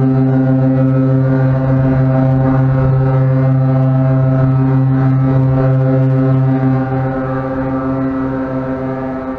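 The AIDAperla's ship horn sounding one long, deep, steady blast as the cruise ship departs, heard from its own deck. It fades away near the end.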